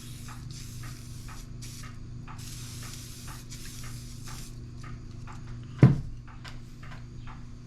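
An aerosol can of WD-40 spraying in several hissing bursts, the last about two seconds long, onto a rust-seized hand tool to free it up. About six seconds in comes a single loud thump, followed by a few light ticks, over a steady low hum.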